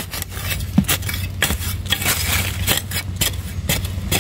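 Narrow metal blade of a long-handled digging spade chopping and scraping into dry, gravelly soil, a quick irregular run of strikes about two or three a second, with loose dirt scattering.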